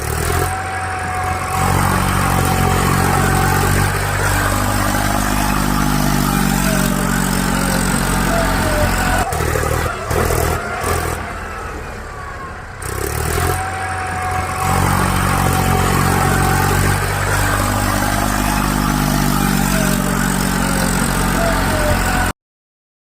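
Engine of a heavy vehicle, such as a tractor, running and revving up and down, in a pattern that seems to repeat partway through. It cuts off suddenly near the end.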